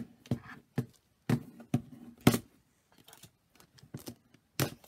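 Clear plastic compartment organizer full of rhinestones handled on a table: a run of sharp plastic clicks and knocks as the box is set down and its snap latches opened, the loudest about two seconds in.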